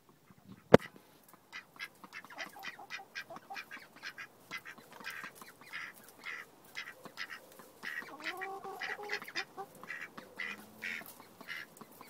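Ducks quacking in a run of short, quick calls, about three a second, with a longer drawn-out call about eight seconds in. A single sharp click sounds just under a second in.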